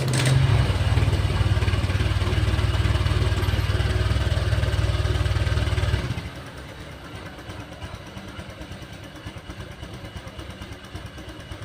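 Honda Vario 125 scooter engine started with its radiator water pump removed, idling for about six seconds and then switched off abruptly. The test isolates the noise, which is then blamed on the water pump's hardened seal and rough bearing.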